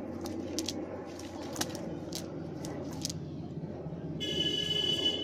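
Light clicks and rustling from a cast net being picked through by hand. About four seconds in, a high-pitched tone with a nasal, buzzy edge sounds for about a second, louder than the rest.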